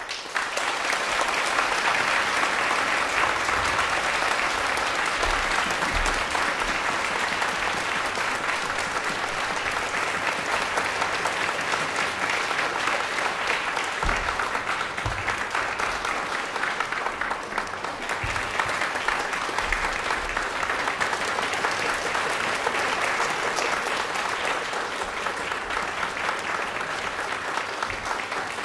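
Audience applauding: clapping breaks out suddenly out of silence and keeps up steadily.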